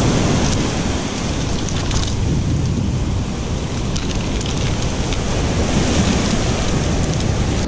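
Surf washing up the beach in a steady loud rush, with wind rumbling on the microphone.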